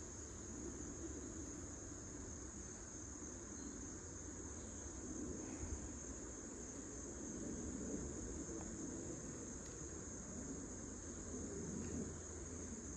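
Crickets chirring steadily in a high, unbroken drone, with a low, uneven rumble underneath.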